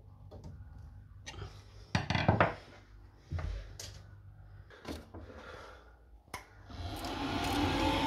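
Scattered knocks and rubs of parts and tools being handled, then about seven seconds in the Worcester Ri boiler's combustion fan starts up: a steady rush of air with a faint rising whine as it spins up.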